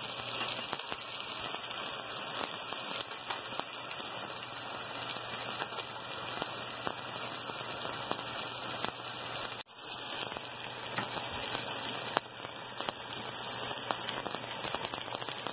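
Tomato, chilli and egg mixture sizzling and bubbling in a frying pan: a dense, steady crackle, broken off for an instant about ten seconds in.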